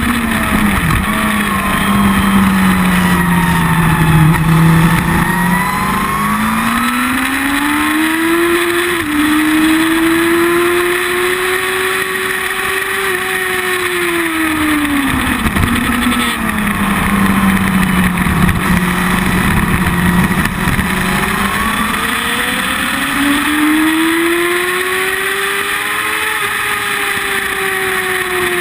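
Sport motorcycle engine heard close to its carbon-fibre slip-on exhaust while ridden at speed, its note falling and rising in long sweeps as the throttle is closed into corners and opened out of them, with wind rush over it.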